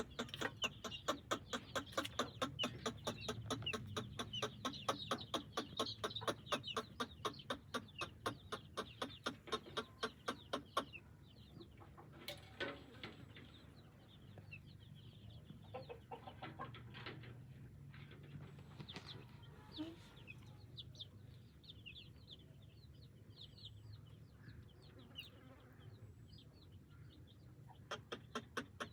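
Chickens clucking and chirping: a fast, even series of short calls, about four a second, for the first ten seconds or so, then quieter scattered chirps until the fast series starts again near the end.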